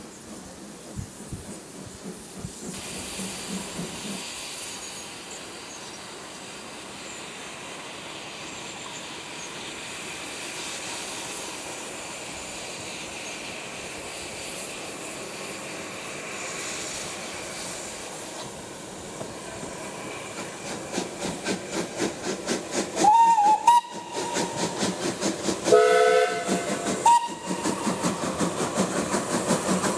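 Steam locomotive running with a steady hiss of steam. In the last third a fast, even beat builds and grows louder, and the steam whistle gives a few short blasts near the end.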